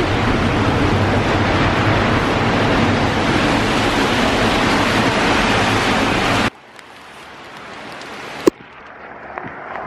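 Heavy rain and wet traffic noise, a loud steady hiss, that cuts off suddenly about six and a half seconds in. A much fainter hiss of rain follows, with a single sharp knock about two seconds later.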